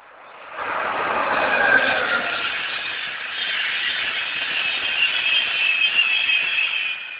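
A train passing at speed, a loud rush of wheel and rail noise with high steady tones on top. It swells about half a second in and fades near the end; the train is the railtour hauled by LNER A4 steam locomotive 60009 Union of South Africa.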